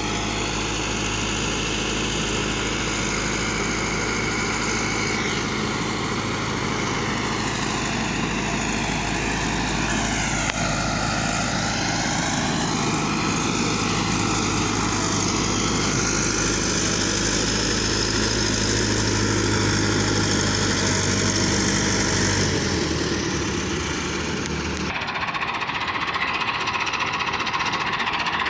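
Massey Ferguson tractor's diesel engine running steadily under load while pulling a tillage implement through dry soil. The sound changes abruptly about 25 seconds in.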